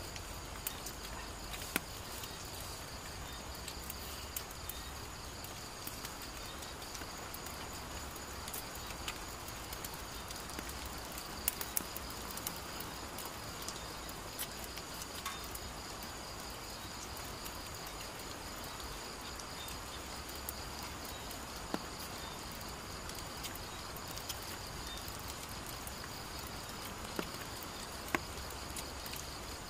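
Night-time insect chorus: a steady, unbroken high trilling at two pitches, over a low hiss, with a few scattered sharp clicks.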